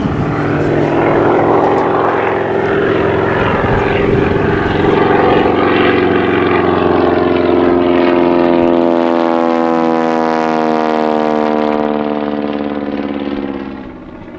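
Propeller aircraft engine running at speed as the plane passes, its pitch falling steadily in the second half as it goes by, then fading quickly near the end.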